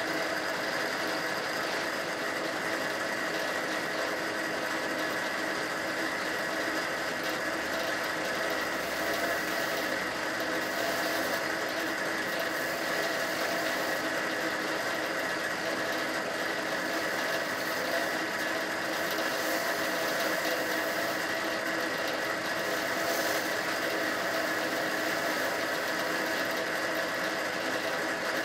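Small Grizzly benchtop drill press running steadily at its fastest belt speed, spinning a flap wheel that sands the steel of a rifle barrel held against it.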